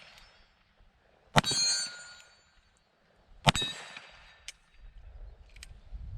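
Two shots from a Ruger Blackhawk Bisley .45 Colt single-action revolver, about two seconds apart. Each crack is followed by a ringing metallic clang. A single short click comes about a second after the second shot.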